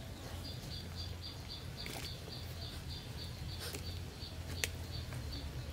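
High, even chirping repeated about four times a second, over a steady low hum, with a few faint clicks.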